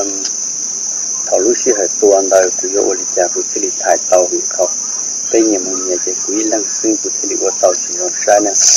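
Steady high-pitched drone of forest insects. Over it, short low pitched sounds come again and again, some louder than the drone.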